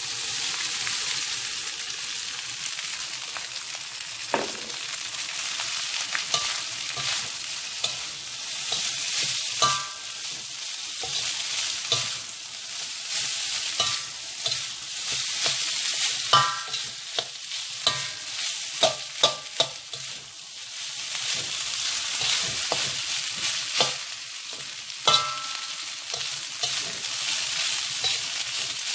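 Cooked rice sizzling in a hot wok as it is stir-fried, with a steady frying hiss under frequent scrapes and knocks of the spatula against the wok, some strikes ringing briefly.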